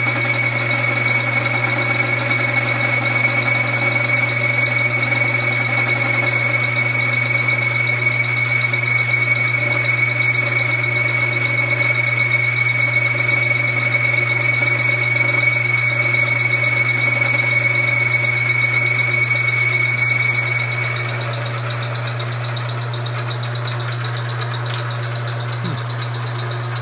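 Vertical milling machine running with its power quill feed plunging an end mill into an aluminium block: a steady low hum with a steady high whine over it. After about twenty seconds the whine stops and the level drops as the feed stops on its own, leaving the spindle running more quietly, with a single click near the end.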